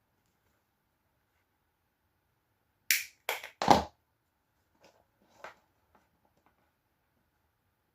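Three sharp clicks in quick succession about three seconds in, the last the loudest, then two fainter clicks: small tools and parts being handled at a workbench while wiring a cable lug.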